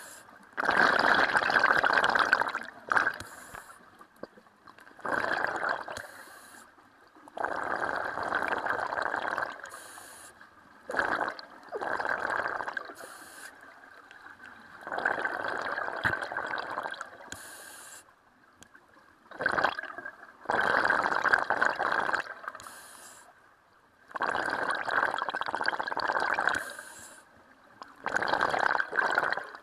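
Scuba diver breathing through a regulator underwater: bursts of exhaled bubbles rushing out every three to four seconds, with quieter pauses between breaths.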